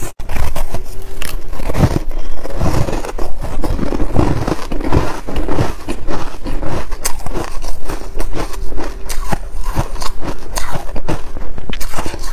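Close-miked chewing of hard freezer-ice chunks coated in buckwheat: dense, irregular crunching and crackling as the ice breaks between the teeth.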